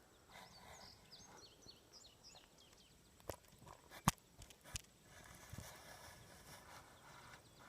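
A few sharp clicks from the telescoping sections of a plastic selfie stick being extended and handled. Before them, a quick run of short, high chirps from a bird over faint outdoor ambience.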